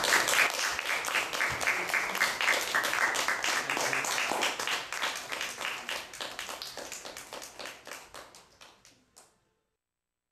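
Audience applauding, the clapping thinning and fading out over about nine seconds.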